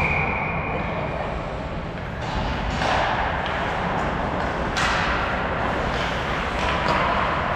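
Ice hockey game on the ice: a thud with a high thin tone ringing after it for about a second and a half, then skate blades scraping the ice in sharp swishes about three and five seconds in, over steady rink noise.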